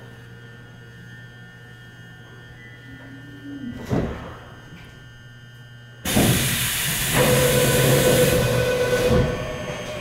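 Subway car at a station stop: a low steady hum, a short thud about four seconds in, then a sudden loud hiss about six seconds in as the sliding doors open, with a steady tone over the hiss that eases near the end.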